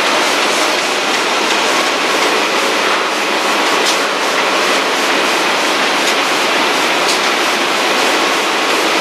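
Heidelberg Speedmaster 102 sheetfed offset printing press running: a loud, steady mechanical running noise.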